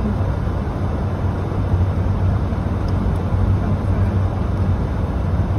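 Steady road and engine noise inside a moving car's cabin: tyres on a wet road and a constant low drone.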